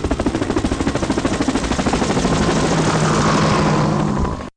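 Helicopter rotor spinning up: rapid, even blade chopping that speeds up and blends into a steadier sound with a rising turbine whine, then cuts off suddenly near the end.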